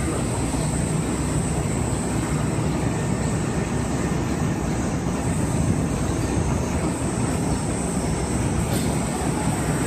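Three-car Kintetsu electric train creeping slowly into the platform to couple onto a standing two-car set: a steady rumble of wheels and running gear, with a thin steady high tone throughout.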